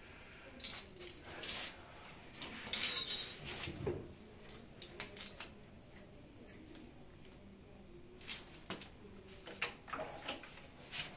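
Hard objects, such as tools or small hardware, being handled: scattered sharp clinks and light knocks. The clatter is busiest about three seconds in, with a few more clinks near the end.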